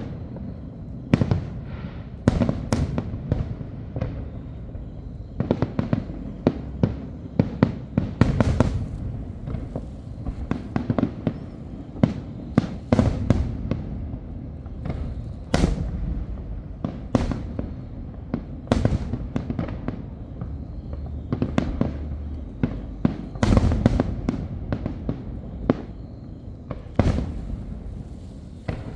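Aerial fireworks going off in an irregular barrage of sharp bangs, some close together in quick runs, over a continuous low rumble of shell bursts echoing.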